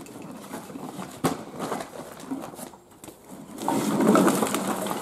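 Recyclables being handled and weighed: a single sharp knock about a second in, then a louder stretch of handling noise near the end.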